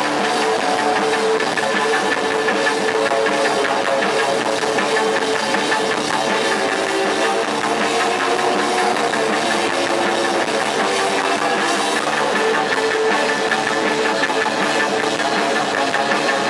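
Post-punk rock band playing live, with electric guitar and a full drum kit, loud and steady throughout.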